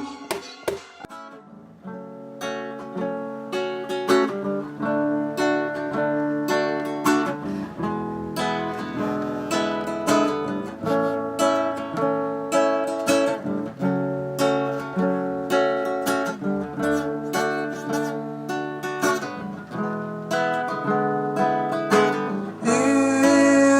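Acoustic guitar playing an instrumental passage of plucked and strummed chords in a steady rhythm. It comes in softly about two seconds in and grows fuller near the end.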